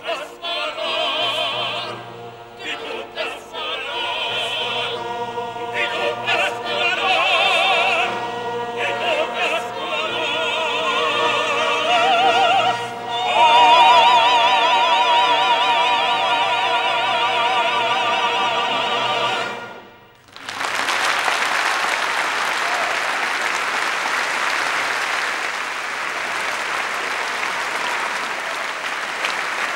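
Operatic soloists, two women prominent, sing with choir and orchestra to a loud final climax of held, strongly vibrating notes. The music cuts off about twenty seconds in, and a large audience breaks into steady applause.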